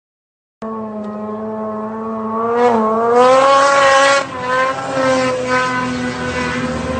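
Snowmobile engine running at high revs, a loud, steady whine that starts abruptly about half a second in. It climbs in pitch around three seconds in, dips briefly a second later, then holds.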